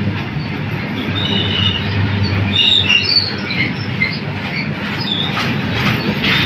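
Goods train's loaded freight wagons rolling past, a steady rumble of wheels on the rails, with scattered short high squeaks and some louder rattles near the end.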